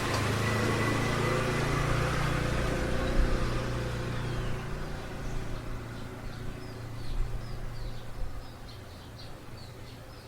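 A motor vehicle's engine passes close by and fades away over the first several seconds. Small birds chirp in quick repeated notes, heard more clearly in the second half as the engine dies down.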